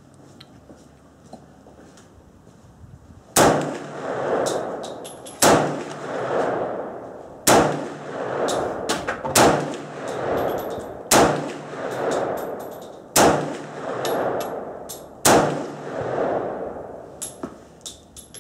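Romanian Tokarev pistol in 7.62x25mm fired seven times at a slow, steady pace, one shot about every two seconds, each sharp report followed by about a second of echo.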